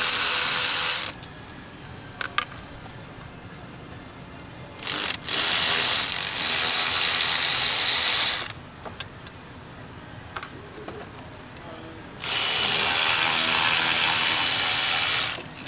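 Cordless electric ratchet with a T30 Torx bit spinning out the throttle body bolts, running in three bursts: one ending about a second in, another from about five to eight seconds, and a third near the end.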